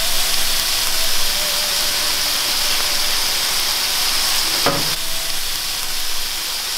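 Pork mince and onion sizzling steadily in a hot frying pan over a gas burner. A splash of Chinese rice wine is poured in at the start, when the sizzle is a little louder, and the mince is stirred and tossed near the end.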